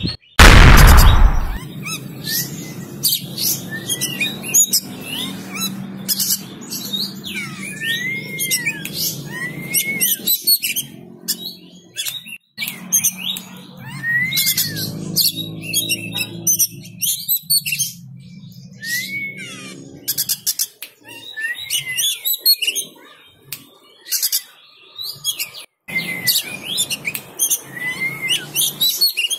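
Oriental magpie-robin (kacer) of the Sumatran Padang type singing: a varied song of arched, rising-and-falling whistles mixed with sharp chips and scratchy clicks, broken by short pauses. A short loud burst comes about half a second in and is the loudest thing heard.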